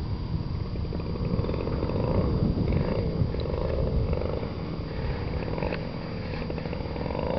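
Radio-controlled model airplane engine droning at a distance. Its pitch rises and falls several times rather than holding steady. The owner puts this uneven throttle down to a throttle servo that was jumping instead of advancing smoothly.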